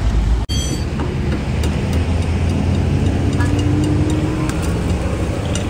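Road traffic running past: a steady low engine and tyre rumble from vehicles on the road, with a faint tone that rises slightly in the middle and a few light clicks.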